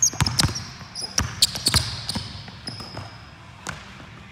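Basketball dribbled on a hardwood gym floor, a quick run of bounces over the first two seconds with sneakers squeaking on the boards. The dribbling stops, and one more knock sounds near the end as the shot goes up at the hoop.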